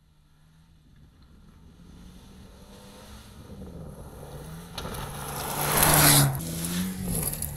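Bowler Defender Challenge rally car, a Land Rover Defender 90 with a 2.0-litre turbocharged petrol engine, approaching on a loose dirt track, its engine growing steadily louder. It passes close about six seconds in, with a loud spray of gravel and dirt from the tyres.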